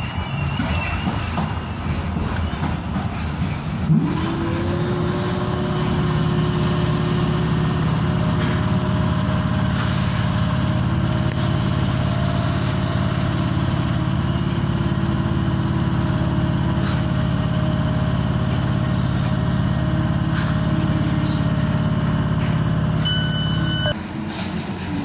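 An on-board motor of a metro train spins up about four seconds in, rising in pitch, then runs at a steady pitch under the train noise before cutting off suddenly near the end. A short high beep sounds just before it stops.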